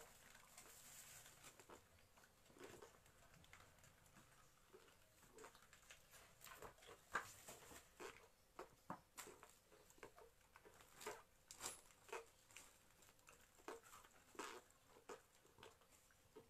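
Near silence with faint, irregular clicks and rustling as clothes and hangers are handled.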